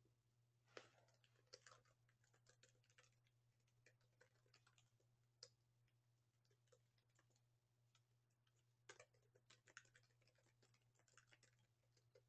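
Faint typing on a computer keyboard in two short runs of key clicks, about a second in and again about nine seconds in, over a low steady hum.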